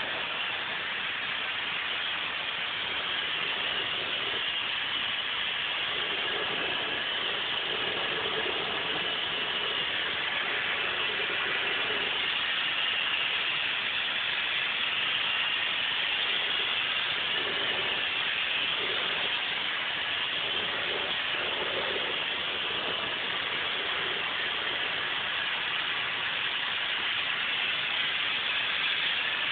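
Steady rushing air in a paint spray booth, with the hiss of a compressed-air spray gun spraying waterbase paint onto a car door.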